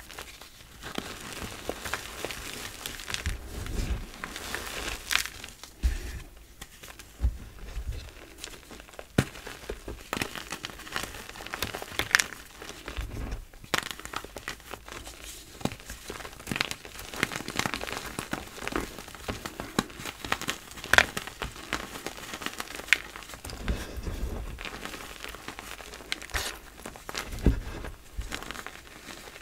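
Hands crushing and crumbling blocks of gym chalk into a heap of chalk powder: a continuous run of irregular crunches and crackles with soft powdery scrunching, and a low thud now and then.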